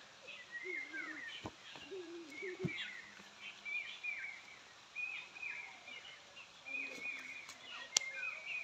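Birds calling in the background, short chirps repeating about once a second, with a single sharp click near the end.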